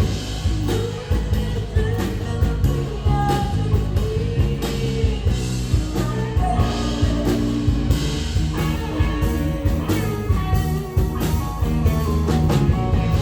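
Background rock song with singing and guitar over a steady beat.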